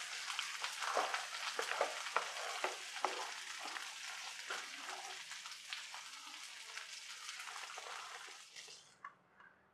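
Thick prawn curry sizzling in a nonstick pan as a spatula stirs it, with many small clicks and scrapes over a steady hiss. The sizzle dies away near the end.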